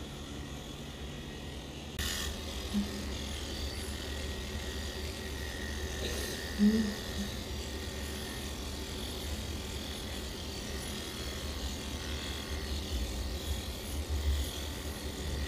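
Electric pet grooming clippers buzzing steadily while shaving a dog's coat, getting louder about two seconds in. A short, louder low sound comes about seven seconds in.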